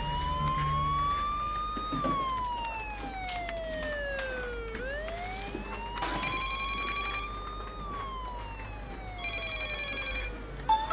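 An emergency vehicle's siren in a slow wail: its pitch climbs for about two seconds, then sinks for about three, and the cycle runs twice.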